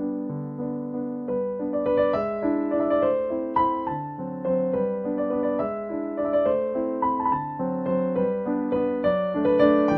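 Background piano music: a gentle melody of evenly paced notes over soft chords.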